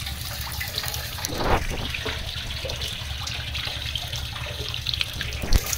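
Shallow water trickling and splashing on the concrete floor of a fish tank holding wriggling snakehead fingerlings, with one dull thump near the end.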